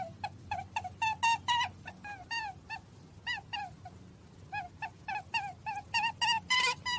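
Many short, high-pitched squealing calls from small animals, several a second, each falling in pitch. They thin out in the middle and crowd together again near the end.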